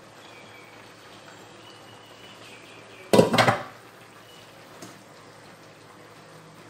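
Cookware clattering: a quick cluster of loud metal knocks about three seconds in as a pan lid and metal spatula hit the frying pan, then one small click a little later, over a faint steady simmer.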